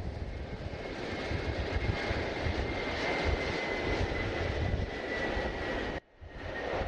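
Jet airliner engines running, a steady rumble with a high whine over it. The sound cuts out abruptly about six seconds in, then comes back.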